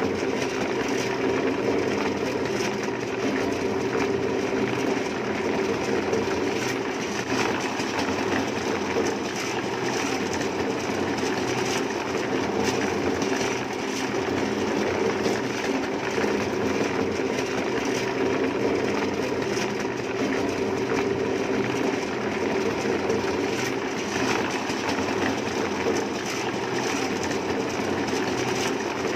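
A machine running steadily with an even, continuous drone.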